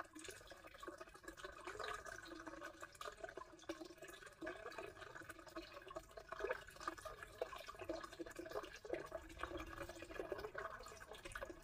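Faint steady trickle of running water, with a few soft clicks.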